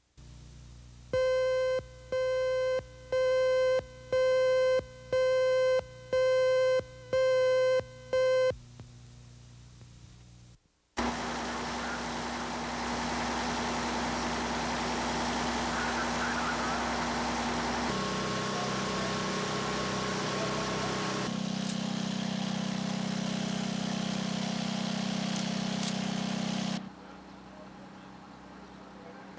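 Eight electronic beeps about a second apart, each one steady mid-pitched tone, like a videotape leader's line-up tone. Then, about 11 seconds in, a Mack fire engine's motor running with a steady drone that shifts pitch twice before dropping away near the end.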